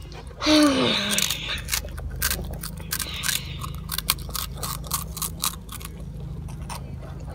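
Close-up chewing of a cheese curl snack: a rapid run of sharp crunches and crackles. About half a second in, a brief voice sound slides down in pitch.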